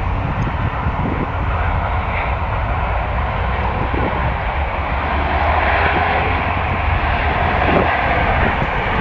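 Airbus A320 jet engines rumbling as the airliner rolls out along the runway just after touchdown. The engine noise swells louder about halfway through.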